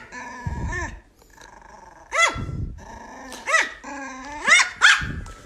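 Poodle puppy giving about four short, high-pitched growling yaps in quick succession, warning off a hand that tries to pet it.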